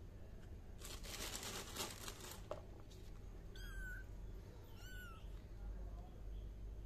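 Two short, high-pitched kitten mews about a second and a half apart, near the middle. They follow a rustling, scraping noise that starts about a second in and lasts about a second and a half.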